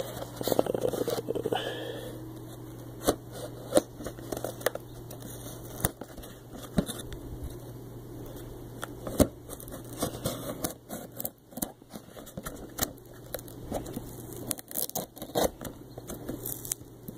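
Cardboard shipping box being opened by hand: irregular tearing, scraping and crackling of the cardboard, with a denser stretch of tearing in the first couple of seconds.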